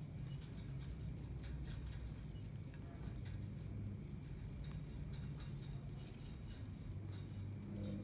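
A cricket chirping in a fast, even pulse of one high tone, about five chirps a second. It breaks off briefly about halfway through and stops about a second before the end.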